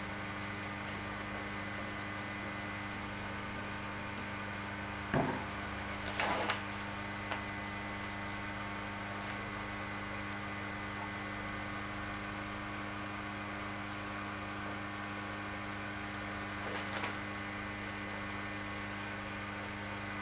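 Steady electrical mains hum, with a few brief soft noises about five to seven seconds in and again near the end.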